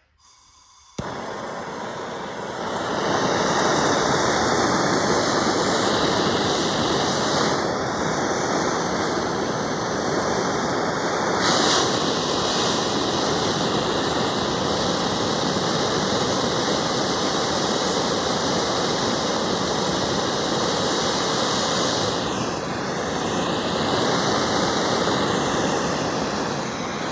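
Propane torch flame hissing steadily as it heats a fluxed copper pipe joint for soldering. It starts about a second in and grows to full strength within a couple of seconds.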